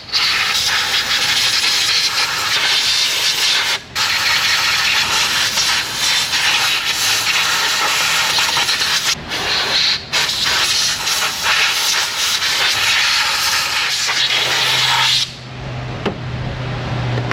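Loud steady hiss of air blowing from a nozzle, broken by three short pauses, cutting off about fifteen seconds in.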